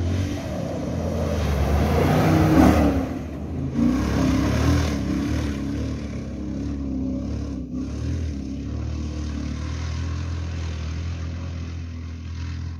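Red Toyota rally pickup's engine revving hard as it speeds past on a dirt track, loudest about two and a half seconds in, then running on at high revs as it pulls away.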